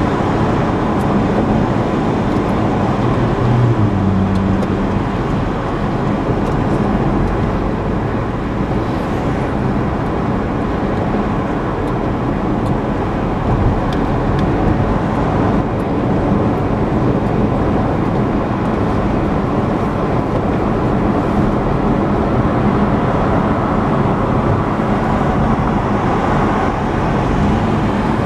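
Steady road noise heard from inside a car cruising at highway speed: tyre and wind noise with a low engine hum, unchanging throughout.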